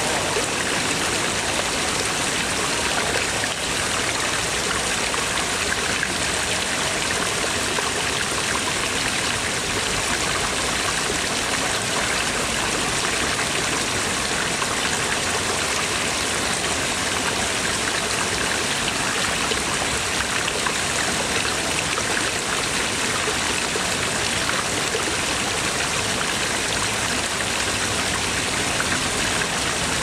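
Several stone dragon-head spouts pouring steady jets of water that splash into a pond.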